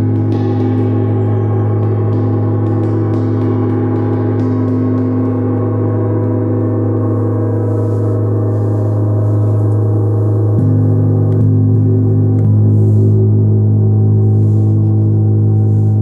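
Large tuned moon gong played with a soft mallet, ringing in a long, deep, sustained hum full of shimmering overtones. The tone shifts and swells slightly about ten and a half seconds in.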